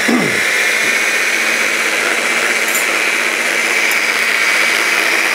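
Wand blender's motor driving its mini chopper bowl, running steadily and loudly with an even high whine as it chops walnuts, garlic and parsley into pesto.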